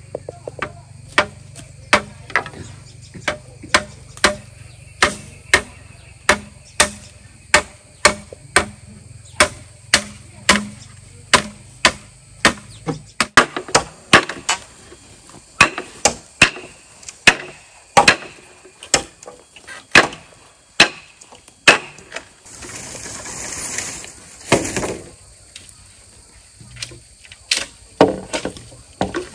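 Repeated sharp strikes of a hand tool on bamboo, chopping or knocking at about two a second and coming faster in the middle. Near the end there is a couple of seconds of noise, then a few more strikes.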